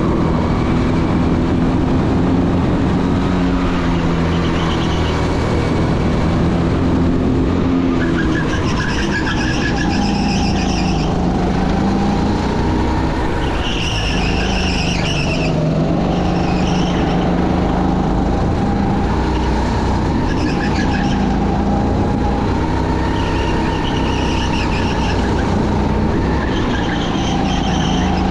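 Motors running without a break, their pitch slowly rising and falling, with repeated short high-pitched squeals over them.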